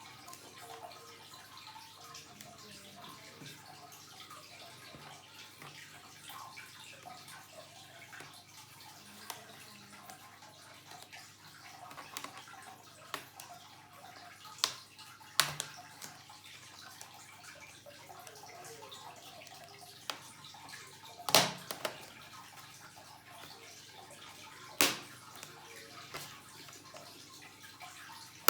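Steady faint hiss with four sharp clicks and knocks, two close together near the middle and two more later, typical of hands handling laptop parts and tools during disassembly.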